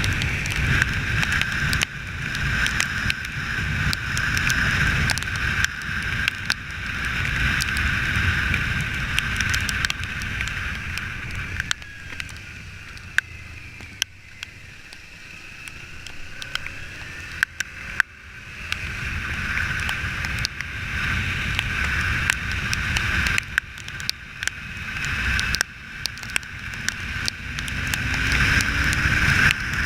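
Wind rushing over the microphone of a moving Kawasaki Ninja 300 motorcycle, with its parallel-twin engine underneath; the rush builds and drops repeatedly, eases off to a quieter stretch around the middle, then builds again with the engine rising in pitch near the end.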